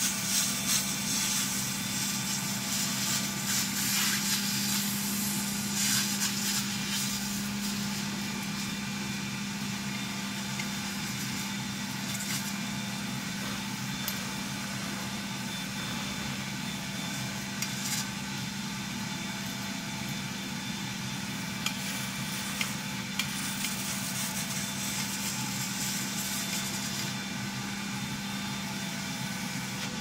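A late-1940s Gordon Major cylinder vacuum cleaner running steadily: a constant motor hum under the rush of air drawn through the hose and crevice tool, which swells and eases as the tool moves over the carpet. A few light taps come in the second half.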